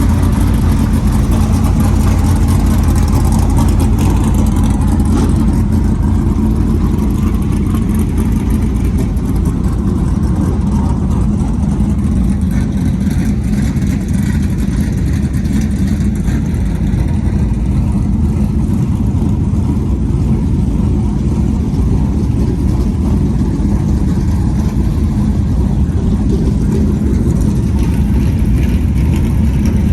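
A field of dirt super late model race cars running their V8 engines on warm-up laps, a loud, steady, deep rumble of several engines at once.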